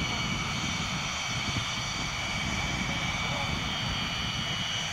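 Blue Angels A-4 Skyhawk jets, each powered by a J52 turbojet, running on the runway: a steady high whine over a low rumble that holds level throughout.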